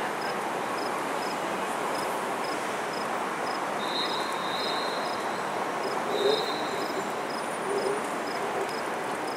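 Steady background noise of distant city traffic, with an insect chirping in a high, even rhythm about twice a second and two longer high notes near the middle.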